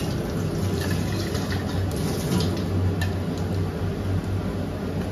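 Pakoras deep-frying in hot oil: a steady sizzle with faint crackles, over a steady low hum.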